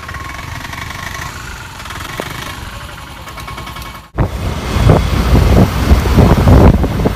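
Bajaj Pulsar 150's single-cylinder engine idling steadily. About four seconds in the sound breaks off, and the much louder rumble of the motorcycle riding in traffic takes over, with wind buffeting the microphone.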